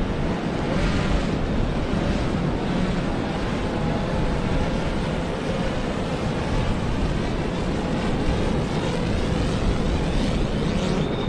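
SwellPro SplashDrone 4 quadcopter flying, its propellers whining with a pitch that wavers and glides, over steady wind and surf noise.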